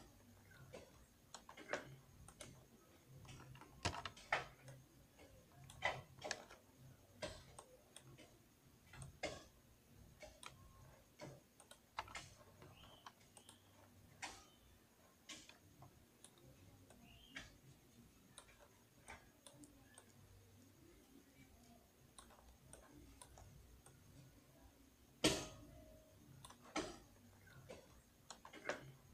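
Faint, irregular clicks of a computer mouse and keyboard keys being pressed, a few seconds apart, with one louder click about 25 seconds in.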